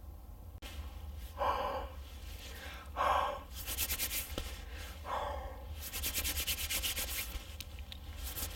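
A person blowing warm breath into cupped hands three times, with the palms rubbed briskly together between and after the breaths to warm cold hands.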